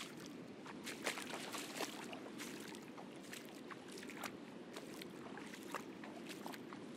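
Feet wading through ankle-deep water on a reef flat, making small irregular splashes and drips, over a steady wash of distant surf.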